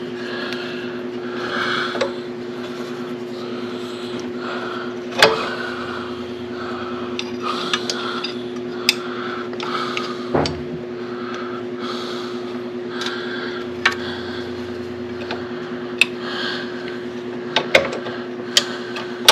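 Scattered sharp metallic clicks and knocks from hand work with metal parts and bolts as a clutch bracket is fitted in a cramped spot, with the loudest knocks about five and ten seconds in and several more near the end. A steady low hum runs underneath.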